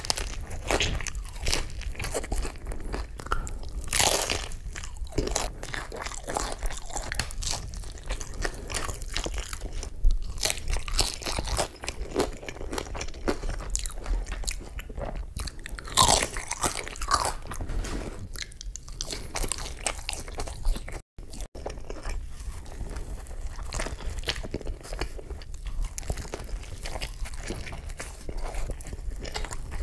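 Close-miked, crisp crunching bites into a hard, orange chip-style taco shell and other fried shells, followed by wet chewing. The loudest crunches come about 4, 10 and 16 seconds in, and the sound cuts out twice for a moment about two-thirds of the way through.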